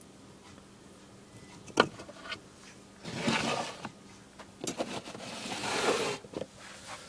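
Plastic snake tubs being handled in a rack: a sharp knock, then two stretches of plastic scraping as a tub slides along a shelf.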